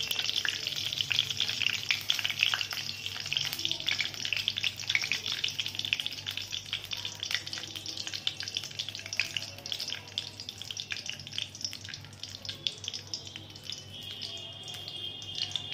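Panch phoron seeds and dried red chillies crackling and sizzling in hot oil in a kadai. The crackling is dense at first and thins out over the seconds.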